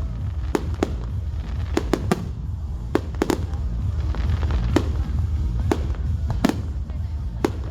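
Closing fireworks display: an irregular run of sharp bangs from bursting shells, several a second at times, over a constant low rumble.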